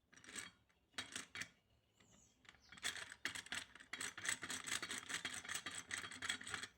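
Gears of a 1978 VW Brasília differential with a locking assembly fitted in the planetary, clicking and rattling metal on metal as the axle shaft is turned by hand. A few separate clicks at first, then from about halfway a fast, continuous run of clicks.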